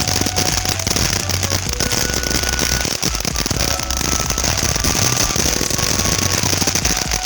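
Firework, likely a ground fountain, spraying sparks with a steady loud hiss and dense crackling, with a rumble underneath.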